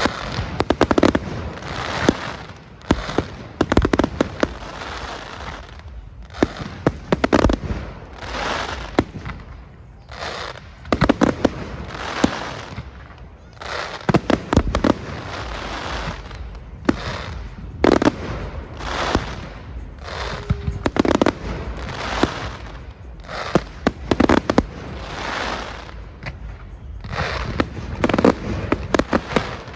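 Fireworks display going off: sharp bangs and repeated crackling, hissing bursts of about a second each, one after another.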